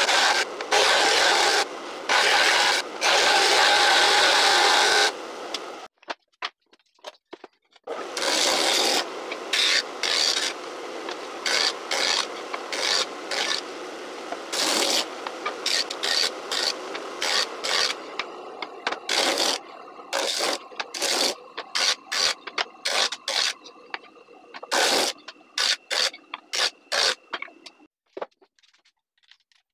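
Small wooden pieces pressed against a spinning bench disc sander, a loud grinding rasp. It runs in long strokes for about five seconds, stops for two seconds, then goes on in many shorter strokes until just before the end.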